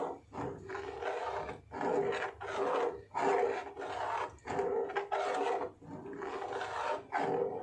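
Steel ladle stirring and scraping through thin moong dal batter in a steel kadhai, in repeated strokes about a second apart, to break up lumps, over a steady low hum.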